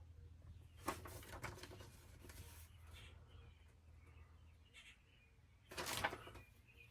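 Handling noises while working with the wiring of a new RV power converter: a sharp click about a second in, some rustling, and a louder short clatter near the end, over a low steady hum.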